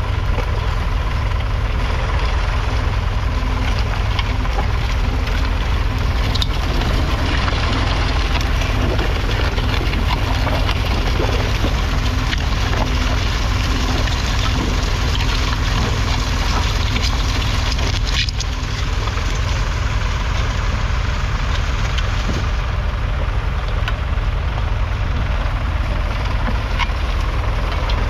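1966 Ford 4000's 3.3-litre three-cylinder diesel engine running steadily, with a brief dip in level about eighteen seconds in.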